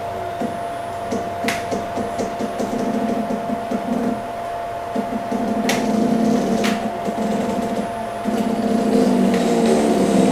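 Stepper motors of the Sixi robot arm whirring as the arm drives through a move, their pitch shifting up and down with the joints' speed, over a steady hum, with a few sharp clicks.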